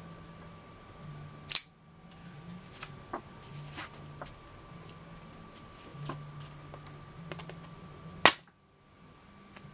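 Two sharp snaps of a spring-assisted folding knife's blade, one about a second and a half in and a louder one near the end. Between them a stiff paper mail-in card rustles and taps as it is handled.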